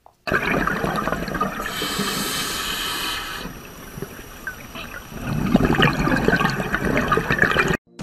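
Rushing water, as heard underwater, swelling deeper and louder about five seconds in and cutting off suddenly near the end.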